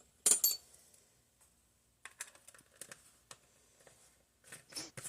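Light clicks, taps and rustling of small kitchen items being handled: a sharp click just after the start, scattered faint ticks, and a few louder knocks near the end.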